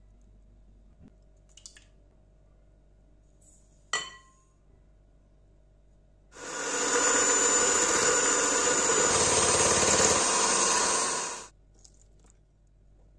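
A single sharp clink with a short ring, then an electric hand mixer's beaters whirring through eggs and sugar in a glass bowl for about five seconds. Its high whine steps up in pitch about halfway through, then the mixer stops.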